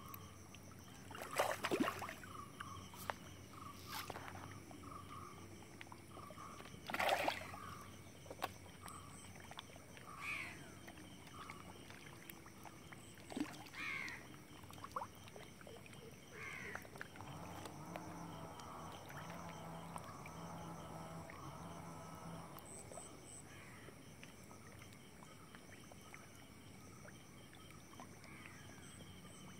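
Quiet pond-side ambience with a few short water splashes at the surface, the loudest about one and a half and seven seconds in, from fish feeding at the top of the water.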